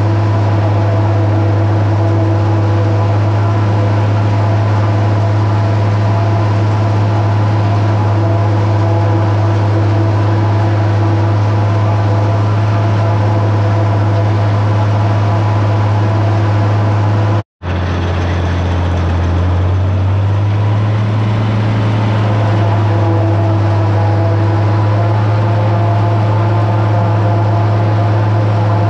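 International 1256 tractor's diesel engine pulling under load, with the New Holland 790 forage harvester running behind it while chopping corn: a loud, steady drone. A little past halfway the sound cuts out for an instant, and after it the engine note sits slightly higher.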